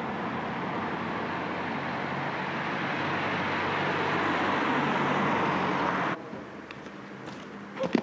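Car driving toward and past, its engine and tyre noise growing steadily louder, then cut off abruptly about six seconds in. After that it is quieter, with a few light clicks and a short rustle near the end as a sheet of cardboard is laid on the ground.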